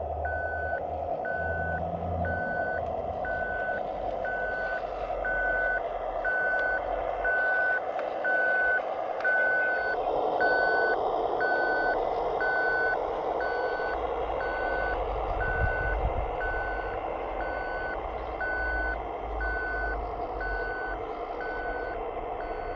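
Reversing beeper of a radio-controlled scale construction vehicle, sounding a regular beep about once a second, over a steady mechanical drone from the running model.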